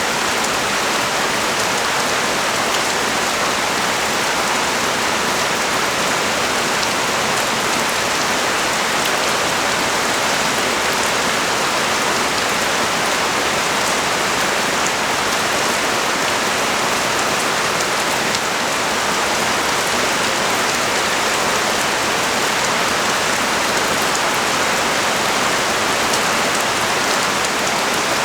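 Heavy rain falling on the street and nearby surfaces, a steady, even hiss with faint scattered drop ticks.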